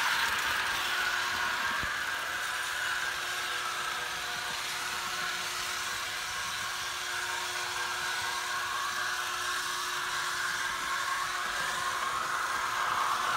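Märklin HO-scale model train, a GG1 electric locomotive with streamliner passenger cars, running on metal track with a steady whir of motor and wheels. It is louder near the start and the end, as the train passes close.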